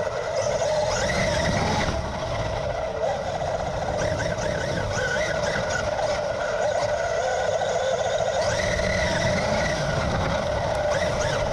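Traxxas UDR radio-controlled desert truck driving, heard from a camera mounted on it. Its brushless electric motor and drivetrain whine steadily, with the pitch rising and falling as the throttle changes, over a constant rush of noise.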